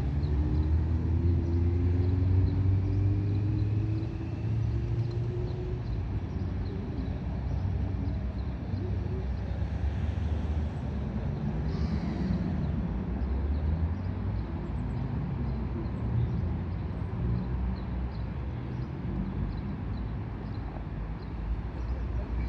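Road traffic: a steady low rumble, with one vehicle's engine note rising as it accelerates over the first few seconds.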